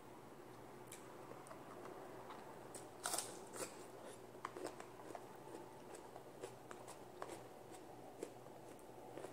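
Faint eating sounds: fingers working rice and greens on a plate and chewing, with scattered small clicks and a louder crackly burst about three seconds in.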